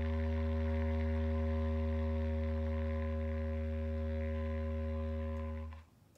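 Bass clarinet holding one long, low note, steady in pitch, which stops near the end.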